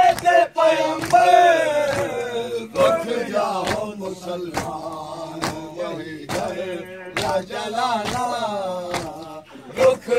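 A group of men chanting a mourning lament for Hussain together, with sharp, even hand strikes of matam chest-beating about once a second.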